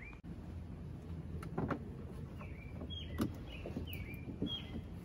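A few light knocks and clatters of hardware being handled on a wooden board, the loudest a little past halfway. A small bird gives several short, falling chirps through the second half.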